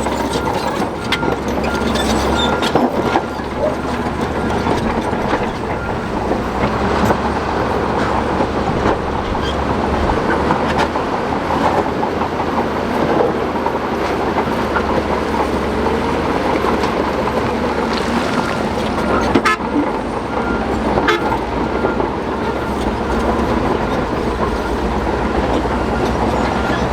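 Shantui DH17 crawler bulldozer's diesel engine running under load, with its steel tracks clanking and rock grinding and knocking as it is pushed. A reversing alarm beeps steadily at the start and again through the last third.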